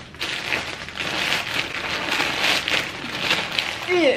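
Plastic poly mailer bag crinkling and rustling as it is torn open and pulled apart by hand, with many quick crackles.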